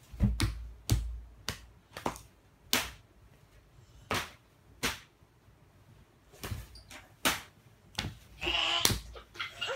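Open-handed slaps between two small children, about ten sharp smacks at uneven intervals. A child's voice sounds briefly near the end.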